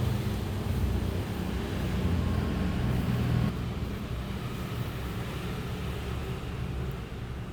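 LG P7000N twin-tub washing machine running with a steady low rumble that eases off about three and a half seconds in.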